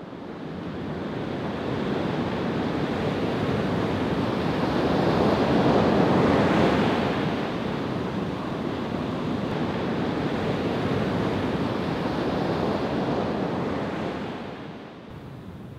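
Ocean surf washing in as a steady rush, swelling to its loudest about six seconds in and easing off near the end.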